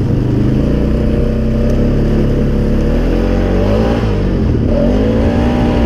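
Polaris Sportsman 570 ATV's single-cylinder engine running hard under throttle through its EPI-clutched CVT as the quad rides a trail. Its pitch holds steady, dips briefly about four seconds in, then climbs back.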